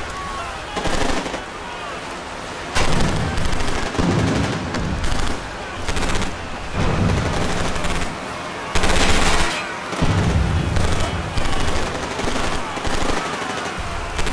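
Bursts of rapid automatic gunfire, each about a second long, following one another with short gaps.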